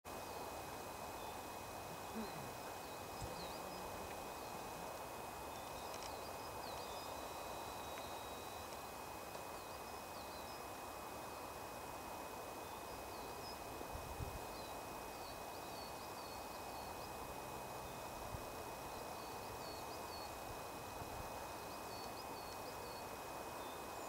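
Woodland ambience: a steady hiss, with small birds giving short high chirps on and off throughout and a faint steady high tone underneath.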